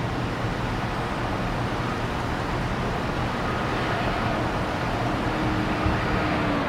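Steady rumble of an Airbus A330's jet engines mixed with wind noise as the airliner slows after landing, with faint steady whining tones coming in about halfway.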